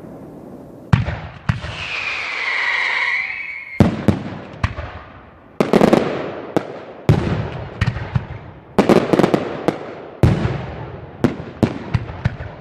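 Fireworks going off: a string of sharp bangs, each trailing off, with quick crackling clusters of bangs around six and nine seconds in. A high whistle, falling a little in pitch, sounds for nearly two seconds about two seconds in.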